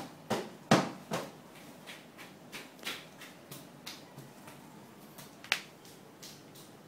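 A run of sharp clicks or taps, about three a second, loud at first and then fading, with a single louder click about five and a half seconds in.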